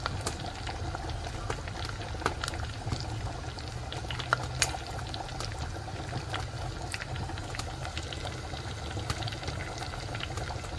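Pork sausage (linguiça) frying in a pan on a wood-burning stove: a steady sizzling hiss with frequent sharp pops and crackles of spattering fat, over a low rumble.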